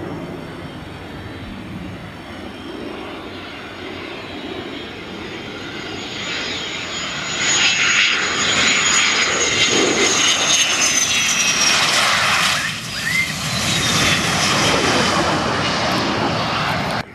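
F-16 fighter jet's single turbofan engine, a steady rumble that builds over several seconds into a loud close pass about seven seconds in. A high whine falls in pitch as the jet goes by and away.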